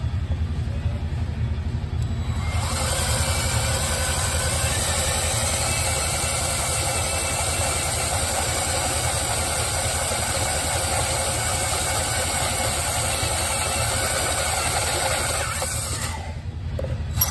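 An electric hand drill with a 3/8-inch bit boring down through a rubber snowmobile track at a traction clip. The steady cutting whine starts a few seconds in and stops about a second before the end, over a steady low hum.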